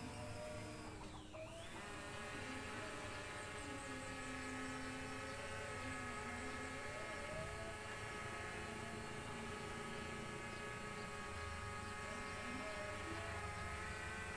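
A FIMI X8 SE quadcopter drone's motors and propellers giving a steady whine, as when it hovers.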